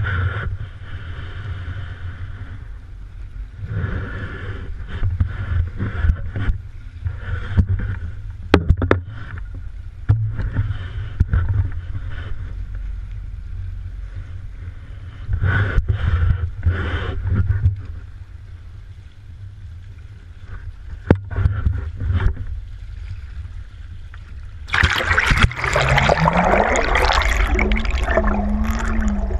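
Muffled rumble and buffeting of wind and lapping lake water picked up by a GoPro in its waterproof housing held just above the surface, with a few sharp knocks. About 25 seconds in the camera is dunked underwater and the sound turns to a loud steady hiss and bubbling, with a faint low tone that rises and then wavers.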